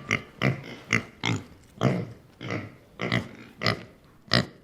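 Piglet grunting in a quick run of short calls, about two or three a second.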